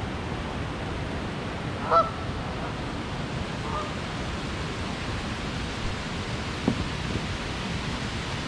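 Canada geese honking: one loud honk about two seconds in and a fainter one a couple of seconds later, over a steady background hiss. A single short knock near the end.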